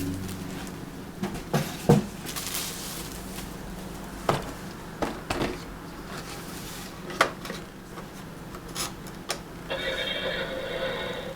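Scattered clicks, knocks and a brief crinkly rustle of bubble wrap and a plastic toy being handled. Near the end, a VTech electronic toy starts playing a synthesized tune.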